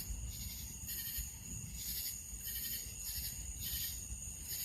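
Night insects calling: a steady high trill with a pulsed chirp repeating a little under twice a second, over a low rumble.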